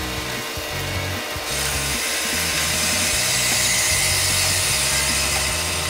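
A power tool working the sled's metal steering shaft: a harsh, high-pitched hissing rasp that starts about a second and a half in and keeps going.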